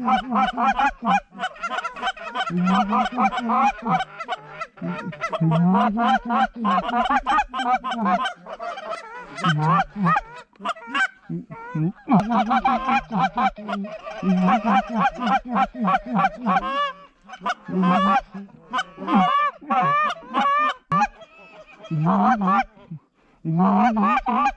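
Loud, rapid Canada goose honks and clucks. They run near-continuous at first, then come in separate bursts with short pauses over the last several seconds.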